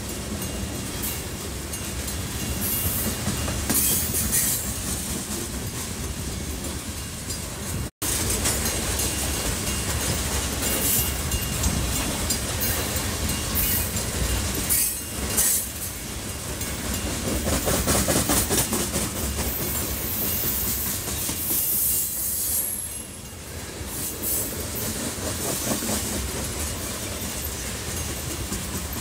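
Freight train of tank cars rolling steadily past, the steel wheels clacking over rail joints, with brief high-pitched wheel squeals now and then.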